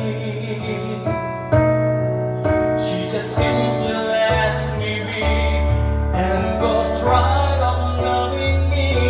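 Slow ballad music: piano and keyboard chords over a bass line, changing chords every second or so.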